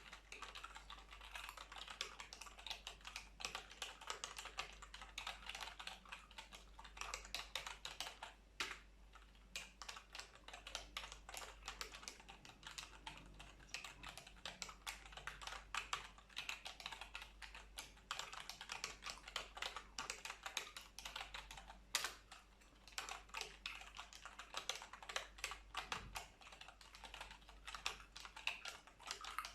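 Computer keyboard typing: a fast, continuous run of key clicks.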